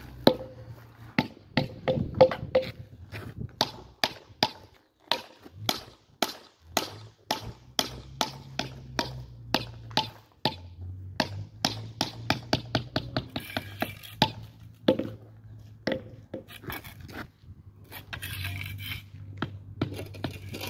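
Rubber mallet knocking a concrete high curb stone down into its damp concrete bedding: a long run of sharp knocks, about two a second, with a few short pauses. A low steady hum runs underneath.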